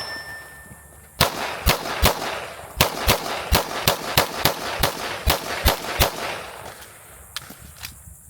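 A string of about a dozen pistol shots in quick succession, two to three a second, running for about five seconds, with a couple of fainter shots near the end.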